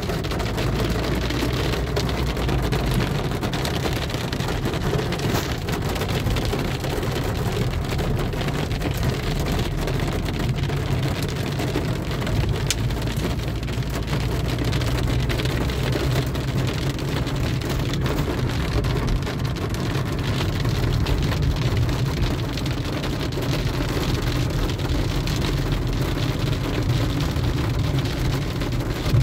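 Rain hitting a car's roof and windscreen, heard from inside the moving car, over a steady low rumble of the engine and tyres on the wet road.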